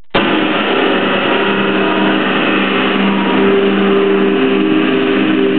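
Loud live drone music: a dense, noisy wash with several held low notes, one higher note joining about three seconds in, from an amplified guitar run through effects. It cuts in abruptly at the start.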